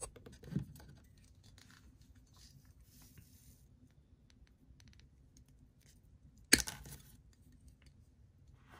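Wire cutters snipping through a coiled wire, one sharp snap about two-thirds of the way in, among faint handling rustles and a soft knock near the start.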